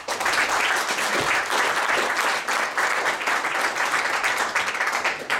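Audience applauding: many hands clapping, starting abruptly and dying away near the end.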